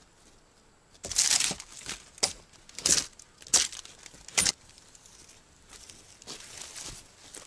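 Rustling and scraping bursts with a few sharp knocks as a wooden log is handled and lifted, loudest between about one and four and a half seconds in, then fainter rustling near the end.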